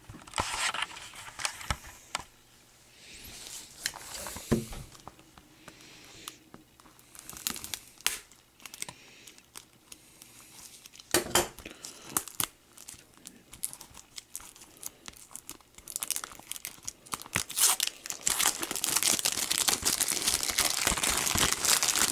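Plastic shrink wrap being torn and peeled off a Blu-ray case: scattered clicks and rustles at first, then steady crinkling of the film over the last third.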